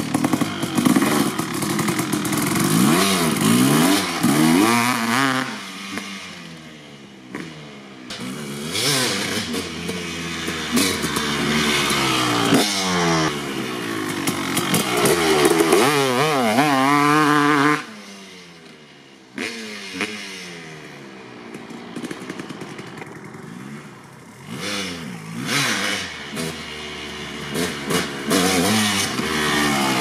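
2003 Kawasaki KX250 two-stroke dirt bike engine with an FMF Gnarly pipe, ridden with the throttle opened and rolled off again and again, its pitch rising and falling in repeated sweeps. About halfway through, the engine note drops away suddenly, then picks up again.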